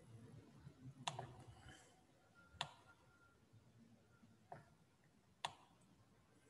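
Four faint, sharp clicks a second or two apart over near-silent room tone, the first the loudest.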